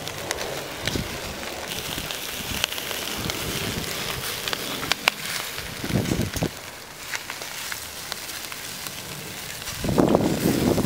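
Skewered eel chunks sizzling over a charcoal grill, a steady hiss broken by scattered sharp crackles and pops. Near the end a louder low rush of wind on the microphone comes in.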